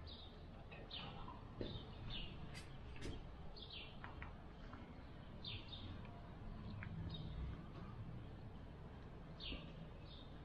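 Birds chirping: a string of short, high, falling chirps, irregularly spaced, over a faint low background hum.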